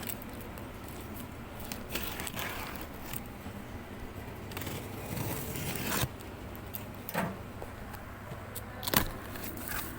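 Cardboard packaging being cut and pulled open by hand: scraping, tearing and crinkling, with a few sharp knocks.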